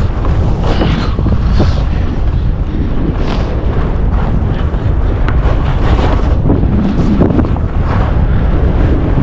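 Wind rumbling on the camera microphone of a skier moving at speed, with the hiss and scrape of skis through chopped-up packed snow rising and falling with each turn.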